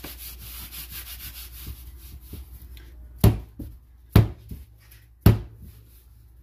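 Bolillo dough being rolled and rubbed by hand on a floured countertop, a soft scratchy rubbing. Then come three sharp slaps about a second apart as the dough is slapped down on the counter.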